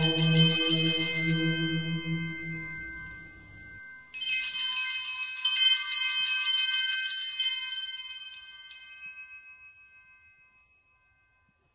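Sanctus bells, a cluster of small altar bells, ringing at the elevation during Mass. A ring at the start fades, a second shake about four seconds in rings out and dies away over about five seconds, and a low held note underneath stops just before it.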